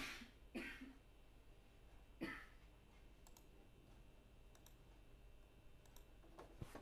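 A few computer mouse clicks over near-silent room tone. Three stronger clicks come in the first two and a half seconds, followed by a few fainter ticks.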